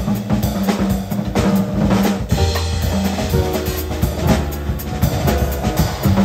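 A Pearl drum kit played busily in a live jazz band, with snare and bass drum hits, rolls and cymbals, over long held low bass notes.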